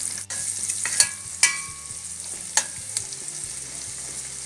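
Sliced onions, whole spices and curry powder sizzling in hot oil in a metal pan, with a spoon knocking and scraping against the pan a few times as the mixture is stirred. One knock, about a second and a half in, rings briefly.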